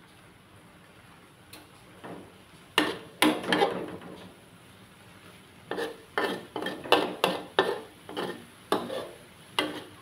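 Metal spatula scraping and knocking against a metal wok while stir-frying. A few strokes come about three seconds in, then a run of about ten strokes, roughly two a second, through the second half.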